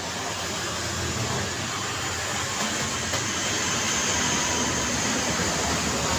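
Road traffic noise: a steady rush of vehicles passing on a busy city street, growing a little louder over the first couple of seconds and then holding.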